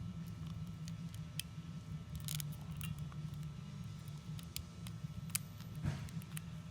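A few scattered light clicks and rattles as a plastic anti-theft security lock on a bottle neck is twisted and worked loose by hand, over a steady low hum.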